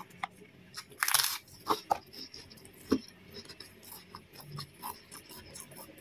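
Eating sounds: a crisp crunch of a prawn cracker about a second in, then a few short clicks and soft chewing.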